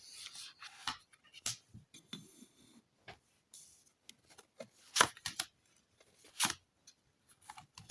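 A deck of tarot cards being handled on a table: sparse, irregular soft card flicks and taps, the sharpest about five seconds in and again a second and a half later.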